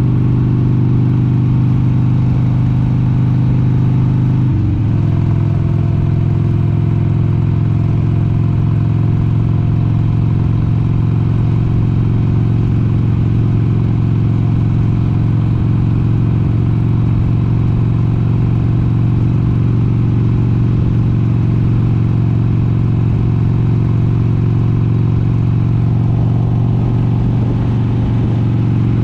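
1996 Harley-Davidson XLH883 Sportster's air-cooled V-twin engine running steadily at cruising speed. About five seconds in the note breaks briefly and settles slightly lower, as at an upshift.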